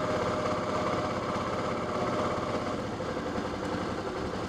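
Motorcycle engine running steadily, easing slightly about three seconds in.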